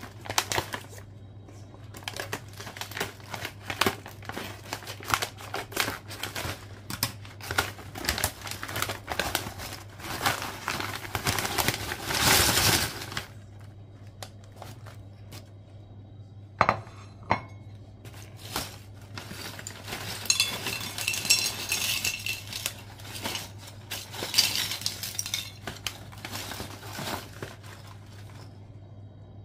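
Crinkling and rustling of a foil snack bag as it is cut open and handled, then dried jackfruit chips tumbling onto a ceramic plate with light clinks and rattles.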